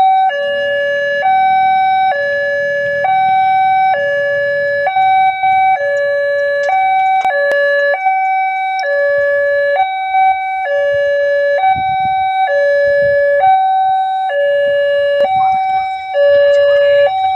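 Railway level-crossing warning siren sounding a loud, steady two-tone hi-lo alarm, switching between a higher and a lower note about every half second: the signal that the gate is closing for an approaching train.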